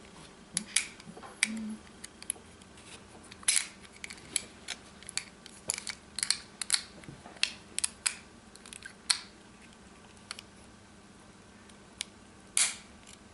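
Small, sharp clicks and taps at irregular spacing as the Cold Steel Recon 1's back lock and lock spring are handled and fitted into the knife's handle. They come thick for most of the stretch, then pause, with one last click near the end.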